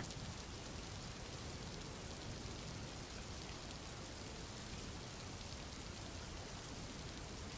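Rain falling steadily, a faint, even hiss and patter.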